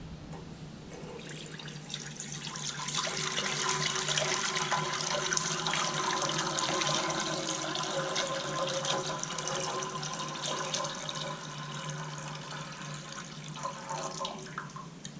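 Liquid running in a steady stream into a container, growing louder over the first few seconds and easing off near the end.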